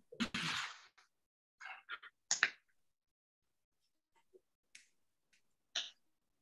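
Quiet handling of painting tools while mixing paint: a brief rustling scrape about a second long, then a few scattered light clicks and taps.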